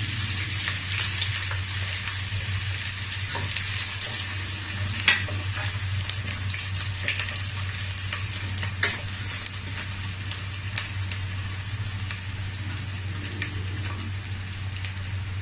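Onions sizzling as they fry in hot vegetable and red palm oil in a pot, a steady hiss, with a spoon clicking against the pot twice as they are stirred.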